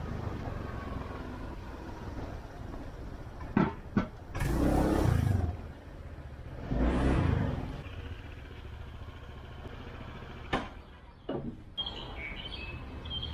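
Street ambience with a steady traffic rumble. Two vehicles pass, about four and seven seconds in, with a few sharp knocks, and birds chirp near the end.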